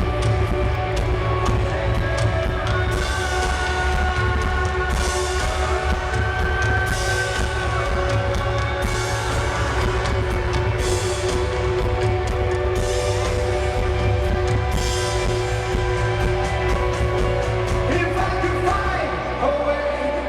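Rock band playing live: sustained chords over heavy bass and drums, with bright cymbal crashes about every two seconds. The bass falls away near the end.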